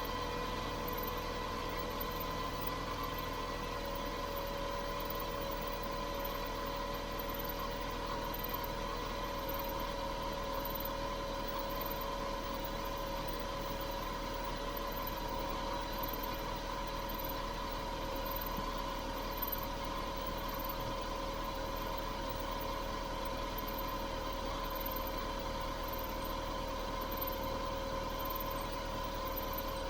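Great Wall Hover H3 engine idling steadily while a drive-belt roller pulley whistles with a constant tone; the whistle is the sign of a worn pulley.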